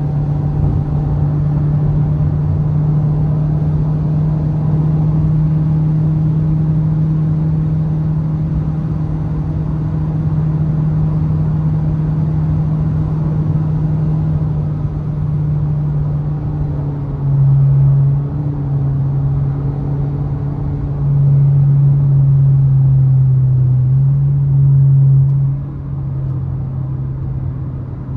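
2023 Toyota Vios's four-cylinder engine running under load with road noise, a steady low drone. In the second half it gets louder and shifts pitch in short steps as the throttle changes, with the loudest stretch near the end before it drops back.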